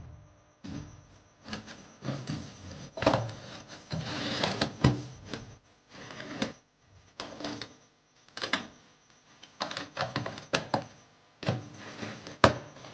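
Irregular clicks, knocks and clatter of hard objects being handled, with a short rustling, scraping stretch about four seconds in.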